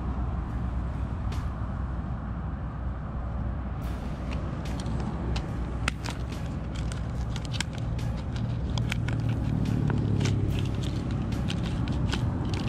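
Stiff plastic blister packaging crackling and clicking as it is pried open by hand, the clicks coming thick in the second half. Under it runs a steady low rumble that grows louder about two-thirds of the way through.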